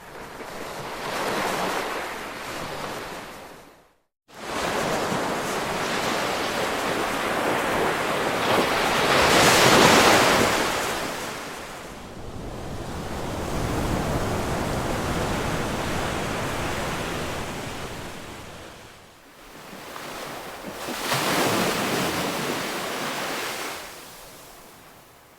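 Ocean waves surging and washing in. The rush of surf swells and fades several times, loudest about ten seconds in. There is a brief, abrupt dropout to silence about four seconds in.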